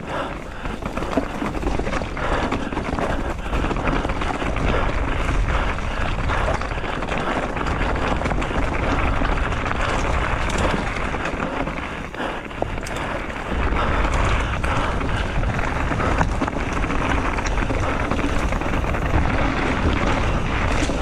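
Mountain bike descending a rough dirt and rock trail at speed: wind buffeting the rider-mounted microphone, tyres rolling over dirt, leaves and stones, and frequent small clicks and knocks as the bike rattles over the bumps. The wind rumble gets heavier about two-thirds of the way through.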